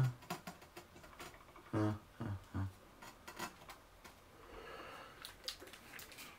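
Faint scattered clicks and taps of hands handling a glass tank and small fittings, with a short murmured hum from a man about two seconds in.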